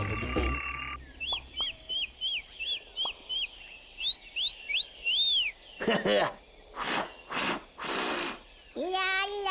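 Cartoon soundtrack: a quick run of high chirps, about eight falling ones followed by a few rising ones and one longer arched chirp. Then come four short noisy whooshes, and near the end a voice begins a held sung note.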